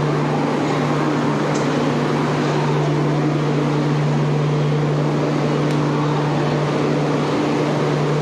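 Steady machine hum: one constant low tone under an even rush of noise, with no change in level.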